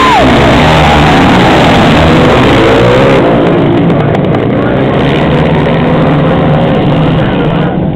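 A pack of racing motorcycles passing close around a dirt-track corner, several engines revving at once with their notes wavering up and down as the riders work the throttles. Loud throughout, easing slightly after about three seconds and dropping off near the end.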